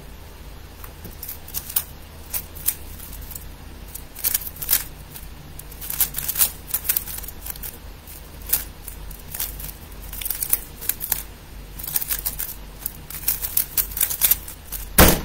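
A 3x3 speed cube turned fast during a timed solve: a quick, irregular run of plastic clicks and clacks. It ends with one sharp, louder knock near the end, the hands slapping down on the speedcubing timer to stop it.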